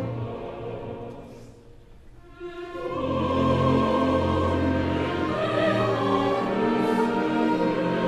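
Opera orchestra and chorus performing slow, sustained music. The sound thins out and dies down about two seconds in, then swells back with held chords over a deep bass.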